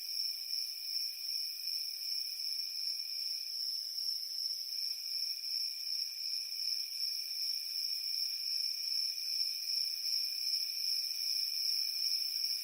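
Steady night-time insect chorus, continuous high trilling at two pitches; the lower one drops out for about a second around four seconds in.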